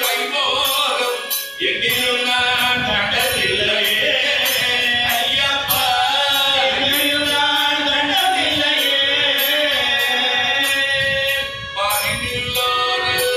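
Devotional bhajan: a group of voices singing to a harmonium's sustained reedy chords, over a steady percussive beat.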